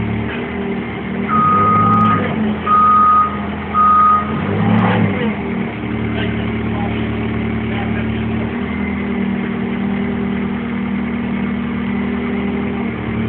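Propane-fuelled Hyster forklift's engine running steadily, with its reversing alarm beeping three times a little over a second in.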